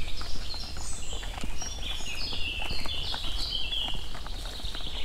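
Small birds singing, a busy run of short high chirps throughout, over footsteps and crackling undergrowth as someone walks through overgrown vegetation, with a steady low rumble underneath.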